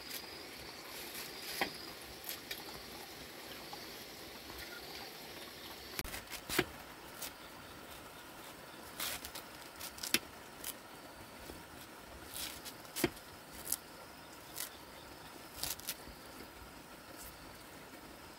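A machete chopping bunches of green vegetable stalks held in the hand, the pieces dropping into a cooking pot: a series of sharp, irregular cuts, about one a second, starting about a third of the way in.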